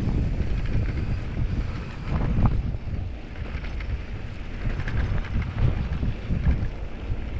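Mountain bike riding a rough dirt trail: wind buffeting the microphone over a steady rumble, with irregular knocks and rattles from the bike over the ground.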